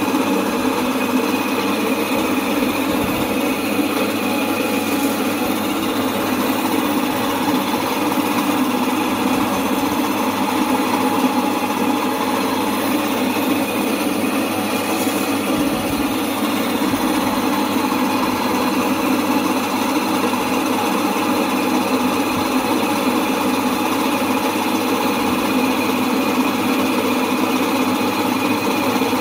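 Domestic atta chakki flour mill running steadily, its electric motor and grinder milling grain into flour with a constant hum and whir. The mill is back in working order after a repair.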